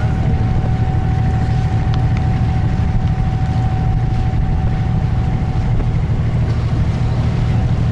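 The engine of a wooden abra water taxi running steadily under way, a constant deep drone. A thin steady whine rides above it and drops out a little past the middle.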